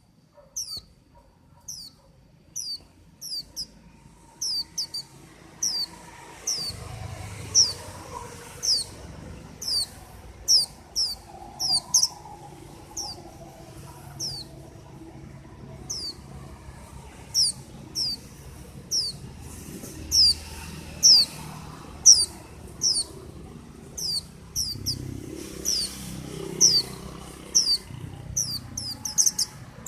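A white-eye (vành khuyên) giving short, sharp, high notes that slide downward, often in quick pairs, repeated about once or twice a second. A faint low hum sits underneath from about six seconds in.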